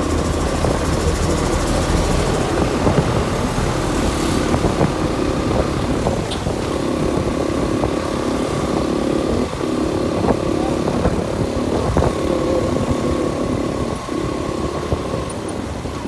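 Motorcycle running steadily on the move: engine and road noise with a thin steady whine above it.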